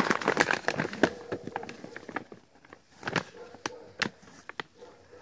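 A large paper sack of dry cat food crinkling and rustling as it is handled in a cardboard box. There is dense crackling for about the first second, then scattered sharp crinkles.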